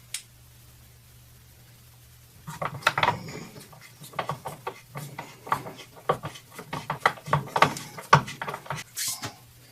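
Irregular clicks, knocks and rubbing of small edger parts being handled and fitted together by hand, starting about two and a half seconds in over a faint steady hum.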